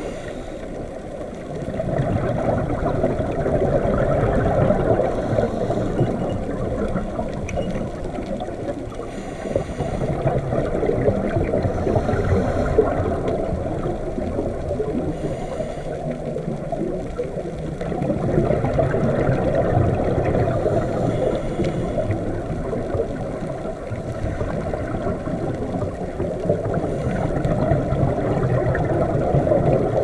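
Muffled underwater water noise: a low rushing and gurgling that swells and eases every several seconds.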